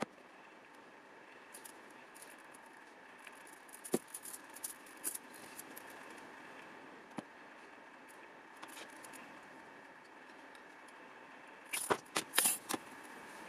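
Metal armature wire being bent and handled: scattered small clicks and scrapes, with a short cluster of louder clicks and rattles near the end.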